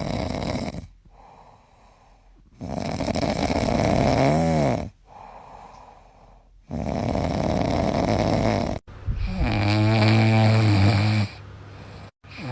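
A dog snoring in long, regular snores, about four of them roughly three seconds apart, with quieter breaths between. Some snores end in a low, buzzing pitched tone.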